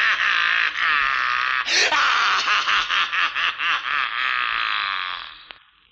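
A man's villainous laughter as a horror sound effect, dense and continuous, fading away about five and a half seconds in.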